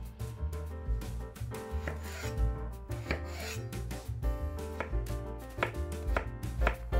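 A chef's knife cutting through peeled raw potatoes and knocking onto a bamboo cutting board, the cuts coming faster in the second half, with background music.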